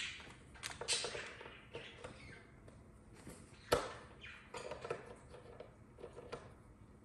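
Audio cable being handled and its plug pushed into a jack on a small audio mixer: scattered light clicks and handling noise, with one sharper knock about three and a half seconds in.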